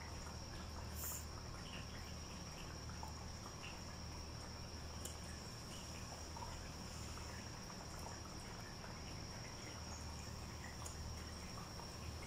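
Cat lapping water from an electric pet drinking fountain: faint small wet licks and trickling water over a low steady hum, with a steady high whine behind it and a brief hiss about a second in.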